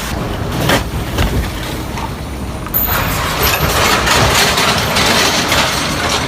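Car in motion: a steady rumble of road and engine noise, with a few sharp knocks in the first couple of seconds. The noise gets louder about three seconds in.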